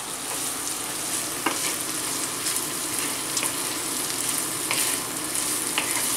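Diced pancetta, onions and peas sizzling in olive oil in a frying pan, a steady hiss with a few light clicks scattered through it.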